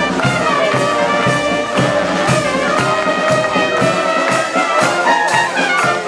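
Street marching band playing a lively tune: trumpets, trombones, sousaphone and clarinets, over a steady beat of about two a second.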